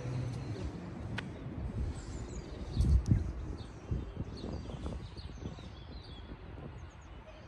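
Small birds chirping over a steady low rumble, with a brief low thump about three seconds in.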